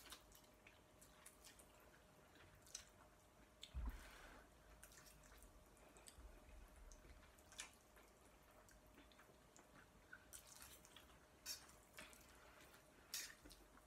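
Faint slurping and chewing of noodles eaten with forks from bowls, with scattered small clicks. A dull thump comes about four seconds in, and a few short slurps near the end.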